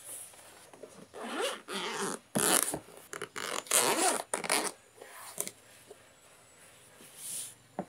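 Zipper on a DJI Mavic drone's grey fabric-covered carrying case being pulled open in several rasping strokes, loudest in the middle.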